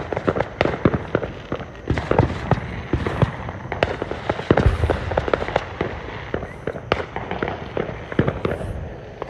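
Fireworks going off: a dense, irregular run of sharp cracks and pops, with heavier bangs about halfway through.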